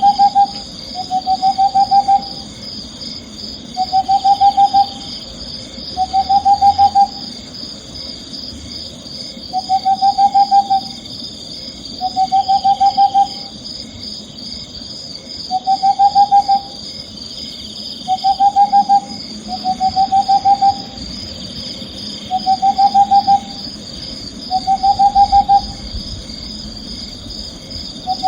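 An owl giving a trilling call over and over, each trill about a second long and rising slightly in pitch, roughly every two to three seconds. A steady high-pitched insect chirring runs behind it.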